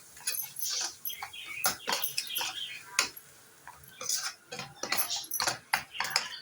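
A cooking utensil stirring and scraping fried onions and spices around a frying pan, with irregular clicks and scrapes against the pan and a short pause about three seconds in.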